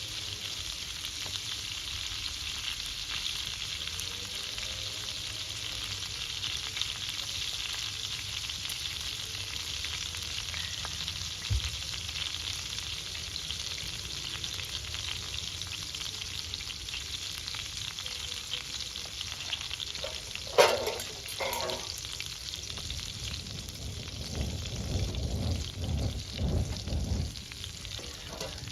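Food sizzling steadily as it fries in hot oil. There is one sharp click about twenty seconds in, and a few muffled low knocks near the end.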